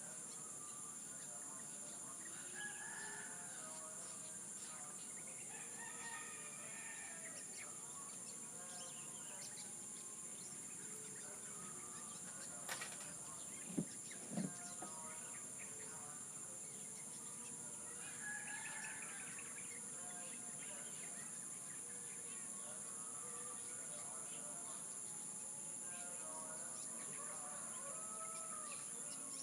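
Roosters crowing several times against a steady high drone of insects, with other birds calling. Near the middle, two short, sharp, lower sounds are the loudest moments.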